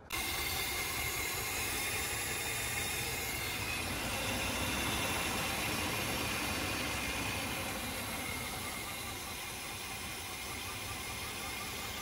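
Mercedes 420SEL's 4.2-litre V8 idling steadily, with one fuel injector pulled out of the intake and spraying into a cup for a fuel-delivery test on a misfiring cylinder.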